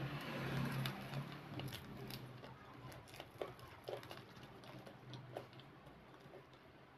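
Close-up eating sounds: chewing with the mouth closed and a puffed, deep-fried bhatura being torn by hand. A few small sharp clicks come through, and it is loudest in the first second or so.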